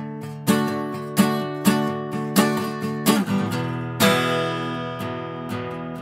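Acoustic guitar strummed in a rhythmic pattern of sharp strokes with ringing chords. About four seconds in, a last strong strum is left to ring out.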